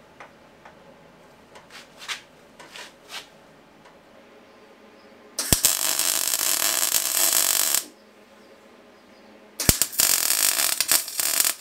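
Electric arc welding on a metal exhaust part held in a vise: two welds of about two seconds each, starting sharply about five and a half and nine and a half seconds in, after a few light clicks of handling.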